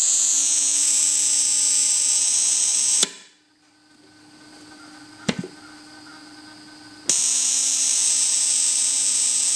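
Model T Ford buzz coil buzzing as it fires many sparks a second across a spark plug gap. It is high-pitched and steady, runs about three seconds, stops, and starts again about seven seconds in. A single click sounds in the pause.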